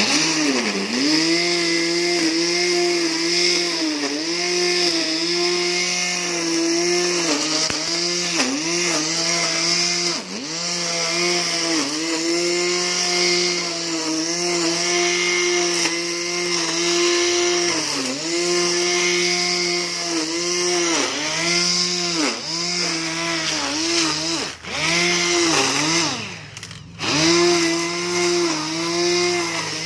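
Electric grass trimmer fitted with thick nylon line running at speed, its motor whine dipping in pitch again and again under load and recovering. Near the end it briefly drops away, then comes back up.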